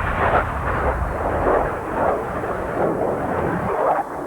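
Radio-controlled model cars racing, a loud, rough, surging motor-and-tyre noise over a low rumble, which cuts off abruptly near the end.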